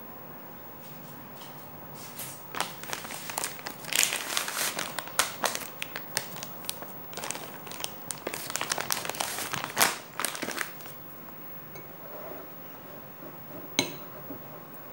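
Plastic bag crinkling and rustling in irregular bursts as it is handled and shaken out over a bowl of dough. The crinkling starts about two seconds in and dies down after about ten seconds, followed by a single sharp click near the end.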